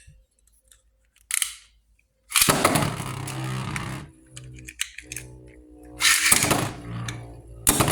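Two Beyblade spinning tops, Flash Sagittario and Starter El Drago, launched by ripcord into a plastic stadium. There is a short rasp, then a loud rush as they land and spin with a steady whir. Loud clashes follow around the middle and again near the end.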